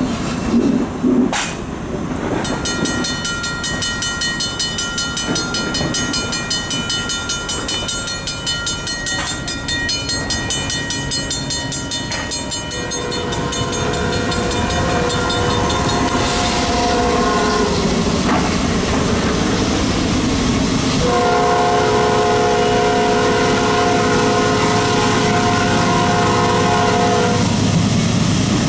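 Railroad grade-crossing bell ringing rapidly. About halfway through, an approaching diesel locomotive's multi-note air horn takes over, blowing long blasts over the low rumble of the train.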